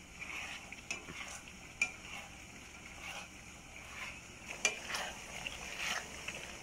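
A plastic spatula stirring and scraping chunks of chicken and potato through a thick sauce in a frying pan. It makes irregular scraping strokes and a few sharp taps against the pan, the loudest a little before five seconds in.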